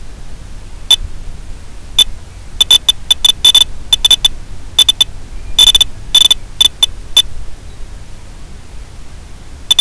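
Steady static hiss of an FPV video link's audio channel, broken by a run of short, high-pitched electronic beeps. The beeps come singly at first, then in irregular clusters through the middle, stop for a couple of seconds, and return in a quick pair near the end.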